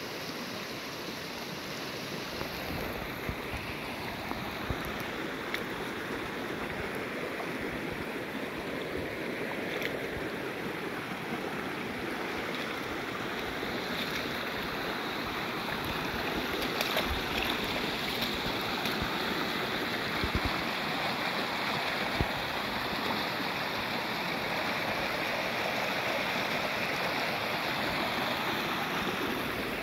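Shallow rocky creek rushing and babbling over stones in a steady wash, a little louder from about halfway through. A few brief faint thumps come through it.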